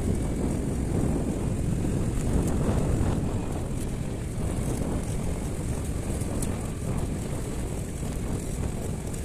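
Wind buffeting the microphone over a steady low rumble, as from riding a vehicle along a bumpy dirt track.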